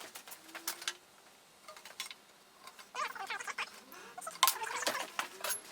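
Scattered light knocks and clicks of hands working with tools and timber at a workbench, with a quieter pause in the middle and a few faint short squeaks.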